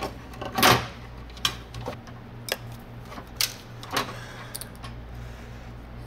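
Workbench handling noises: a loud rustle-and-clatter about a second in, then a few separate sharp clicks and knocks as a plastic bag of small parts is handled and set down, over a steady low hum.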